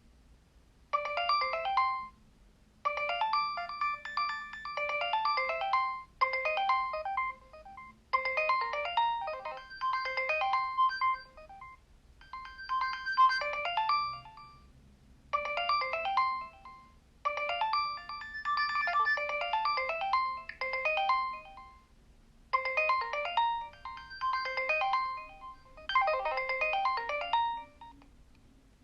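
A Nokia 3100 mobile phone's built-in ringtone playing through its loudspeaker: an electronic melody of quick, bright notes in a string of short phrases with brief gaps between them.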